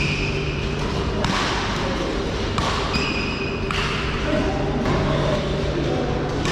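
Badminton rally: rackets striking a shuttlecock, sharp hits roughly a second apart, echoing in a large hall over a steady low hum and background voices.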